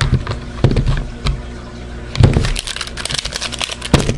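Rubik's Magic puzzle being flipped quickly during a timed speed solve: a rapid run of plastic clicks and clacks, with a couple of heavier thumps about two and four seconds in.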